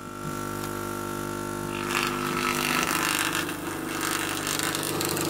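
Flat-panel loudspeaker fed raw AC from a small 6 W mains transformer, giving a loud, steady mains-frequency buzz with a stack of overtones. About two seconds in, the buzz turns rougher and more rasping as the overloaded speaker starts to break up.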